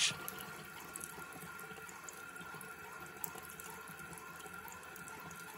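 Bathroom sink faucet running a thin, steady stream of water into the basin, faint.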